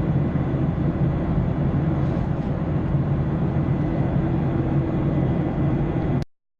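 Cabin noise of a Boeing 737-800 in flight, its CFM56-7B jet engines and the airflow making a low, steady rumble that cuts off suddenly about six seconds in.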